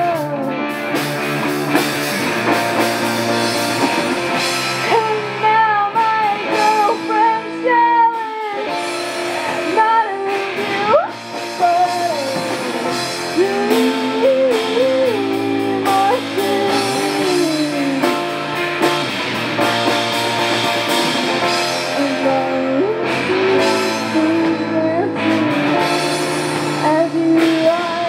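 A live rock song: a woman singing a gliding melody while playing chords on an electric guitar.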